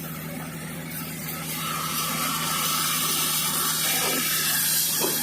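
Electric arc welding on a hydraulic pump: a steady frying hiss of the arc starts about one and a half seconds in and carries on, over a steady low hum.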